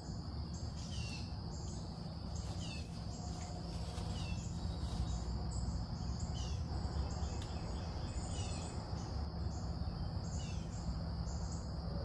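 Morning woodland ambience: birds giving a short downward-sliding call about every second and a half over a steady high insect drone, with a steady low rumble underneath.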